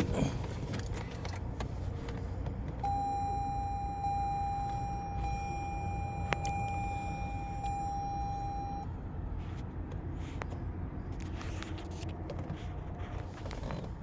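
A car's electronic warning tone, one steady pitch held for about six seconds, starts about three seconds in. A few sharp clicks sound around it.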